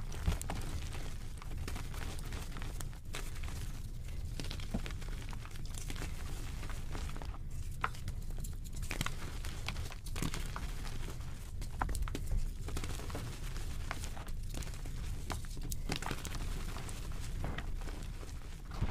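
Hands squeezing and crumbling chunks of reformed gym chalk: a steady dry crunching and crackling, full of small sharp cracks as the pressed chalk breaks into powder.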